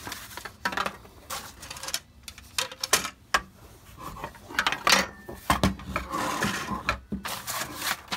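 Handling noise of tool parts on a wooden workbench: an irregular run of clicks, knocks and scrapes as an aluminium guide rail and plastic parts are moved about and a cordless circular saw is picked up.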